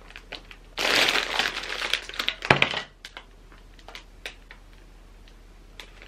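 Plastic bags full of LEGO bricks crinkling as they are lifted and handled, loudest for about a second and a half near the start, with a sharp click about two and a half seconds in. After that, only faint rustles and small clicks of the bags and bricks being shifted.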